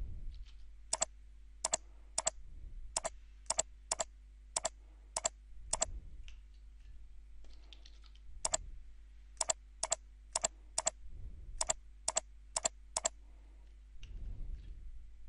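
Sharp clicks of a computer mouse and keyboard, in two quick runs of about nine and eleven clicks at roughly two a second, with a short pause between them.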